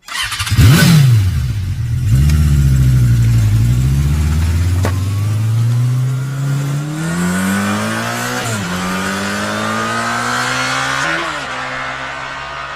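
Vehicle engine revving sharply once, then accelerating, its pitch climbing steadily and dropping briefly at two gear changes in the second half.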